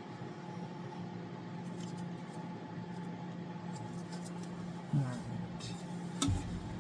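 Light clicks of metal parts being handled over a steady low hum, with a brief vocal sound about five seconds in and a single sharp knock a second later.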